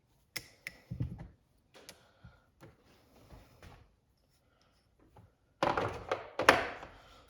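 Metal pieces of a bushing driver kit being handled and fitted onto the driver's mandrel: a few light knocks and clicks, then a busier spell of metal clattering near the end with one sharp click.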